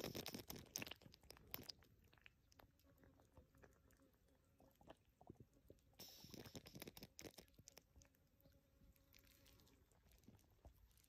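Faint wet crackling and rustling of mud and dry roots as a hooked swamp eel is drawn up out of its burrow, the crackles thickest in a spell at the start and again about six seconds in.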